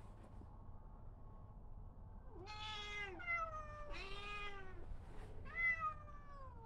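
Cat yowling in a series of drawn-out meows, each falling in pitch and about a second apart.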